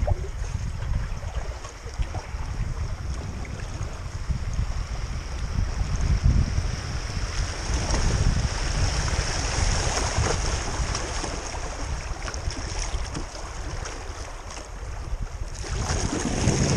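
Shallow river riffle rushing and splashing around a kayak's hull, with occasional paddle strokes in the water, under a steady low rumble of wind on the microphone.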